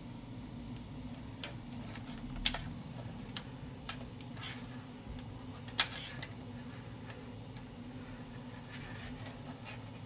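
Scattered light clicks and taps of small objects being handled, the two sharpest about two and a half and six seconds in, over a steady low electrical hum. A faint high tone sounds in the first couple of seconds.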